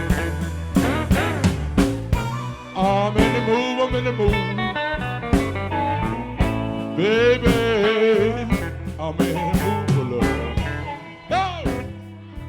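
Blues music with guitar, a strong beat and possibly bending sung or played lines, growing quieter near the end.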